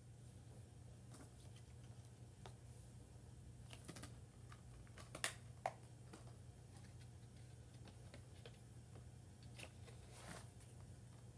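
Near silence: a steady low hum with scattered faint clicks and two sharper clicks a little past halfway.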